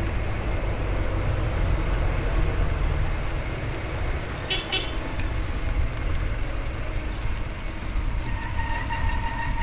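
Steady low rumble of wind and road noise from a moving bicycle, with road traffic. There are two quick high chirps about halfway through, and a vehicle horn sounds a steady tone for about a second near the end.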